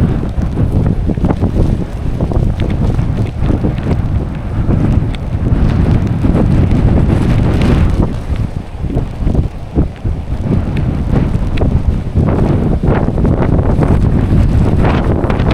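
Typhoon winds gusting hard, buffeting the microphone with a loud low rumble that eases briefly about eight seconds in before building again.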